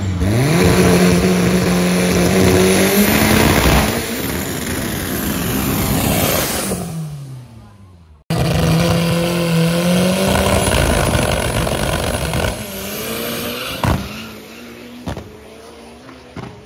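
Drag racing car engines at full throttle. An engine is held at high, steady revs at the launch, then the car accelerates away and its sound falls and fades. After a cut, a second car does the same, ending with a few sharp pops as it fades down the strip.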